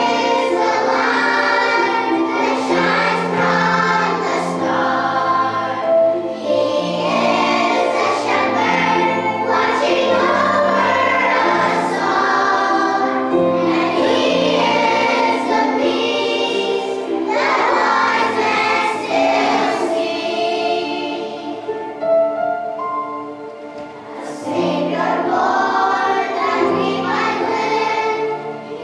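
Children's choir singing a Christmas song in phrases over a low sustained accompaniment, briefly softening near the end.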